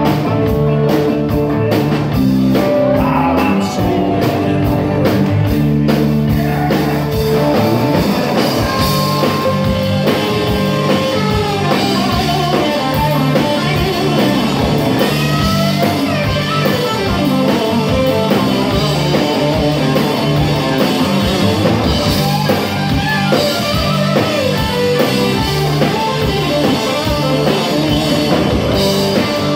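Live rock band playing an instrumental stretch: electric guitars, bass guitar and drum kit, with bending guitar notes partway through.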